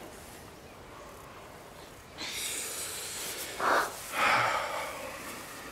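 Heavy breathing close to the microphone, starting about two seconds in, with two loud breaths a little over half a second apart near the middle.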